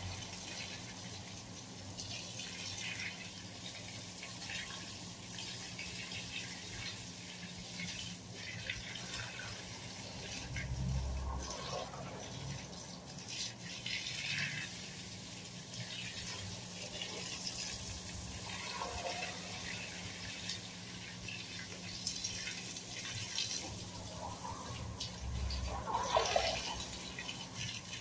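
Garden hose spraying a stream of water onto plants and soil, a steady hiss, with a couple of brief louder bumps about a third of the way in and near the end.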